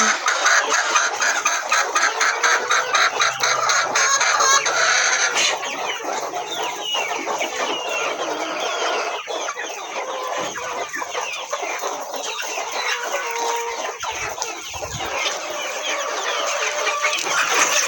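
A flock of free-range local hens clucking and calling, many birds at once, busiest in the first few seconds.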